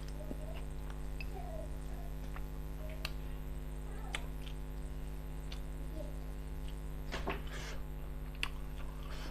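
Eating by hand from a glass plate: a few sharp clicks and a short wet smacking noise about seven seconds in. Several faint short calls of an animal, rising and falling in pitch, come and go over a steady electrical hum.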